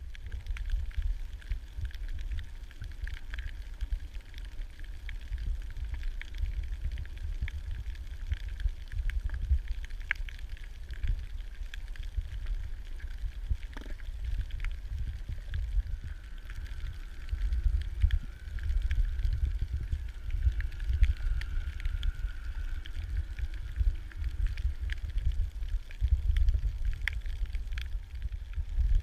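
Water noise: a low rumble that swells and fades, with scattered sharp clicks throughout.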